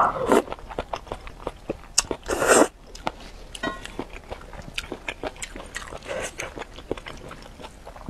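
Close-miked slurping and chewing of enoki mushrooms and noodles from spicy broth, with many wet mouth clicks and smacks. A slurp at the very start and a louder slurp about two and a half seconds in.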